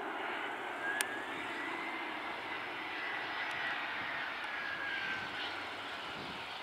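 Airbus A319 airliner on final approach, its twin jet engines running with a steady rushing noise and a high whine that rises a little and then falls away. One sharp click about a second in.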